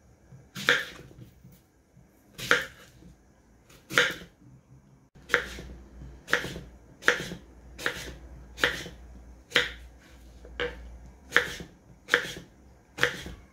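Kitchen knife cutting apples into pieces on a wooden cutting board: a run of about a dozen sharp knocks as the blade hits the board, spaced over a second apart at first and coming a little faster after about five seconds.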